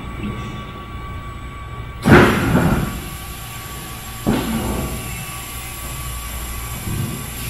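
Hydraulic panel press for structural insulated panels running with a steady hum, its bottom pushing the panels up against the fixed top plates. Two heavy clunks, about two seconds in and again two seconds later, with a hiss starting at the first.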